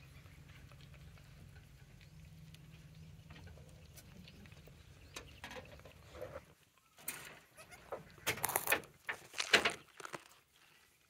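Goat bleating several short times in the second half, the two loudest calls about a second apart near the end; before that only a low steady hum.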